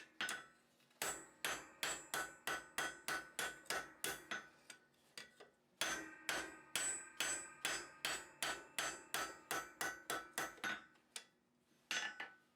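Hand hammer striking hot iron bar on an anvil, forging a latch lever handle. The blows come in a steady run of about four a second, each with a metallic ring. A short pause comes near the middle before a second run, and a few last strokes come near the end.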